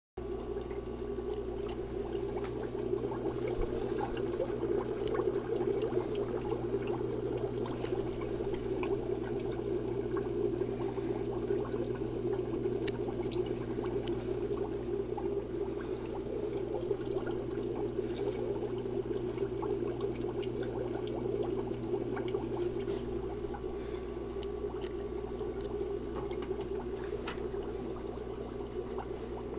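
Steady bubbling and gurgling of air rising through aquarium sponge filters' lift tubes, with small pops scattered through it and a faint low hum underneath.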